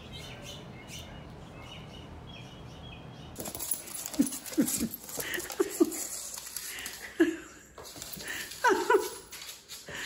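Steady outdoor hiss with a few faint bird chirps, then from about three and a half seconds in, dogs yipping at play in short cries that fall in pitch, repeated every half-second to second.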